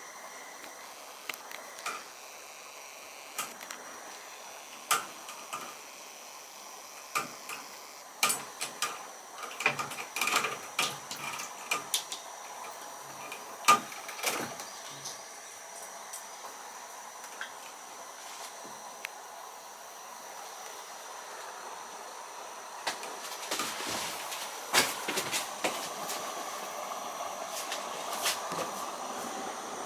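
Kitten chattering at birds: clusters of sharp, rapid clicks in short bouts, densest in the first half and again about two thirds of the way through. A steady rushing noise builds near the end.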